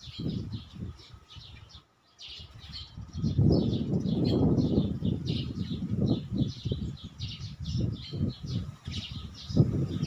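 Small birds chirping again and again in quick short notes, over a louder low rumble that swells and fades. The sound drops out briefly about two seconds in.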